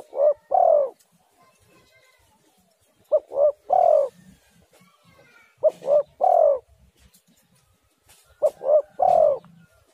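Spotted dove (tekukur) cooing: four phrases about every three seconds, each two short coos followed by a longer drawn-out one.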